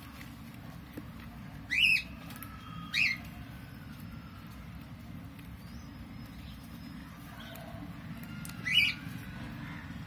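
Peach-faced lovebirds giving three short, sharp calls, each rising in pitch: about two seconds in, a second later, and near the end. A steady low hum runs underneath.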